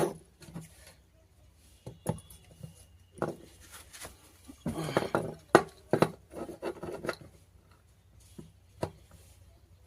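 Hands working on an LED bulb with small tools: irregular clicks, taps and scraping, busiest in the middle, with a sharp knock near the end.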